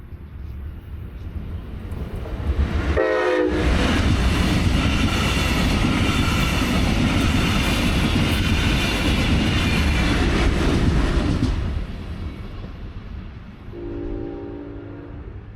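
Brightline passenger train passing close at speed: its noise builds, a short horn blast sounds as it arrives, and a loud rush of wheels on rail lasts about nine seconds before dropping away. Another horn blast sounds farther off near the end.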